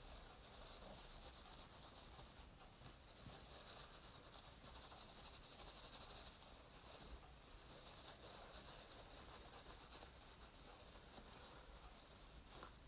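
Near silence with faint, uneven rubbing and rustling: hands handling a felted wool piece.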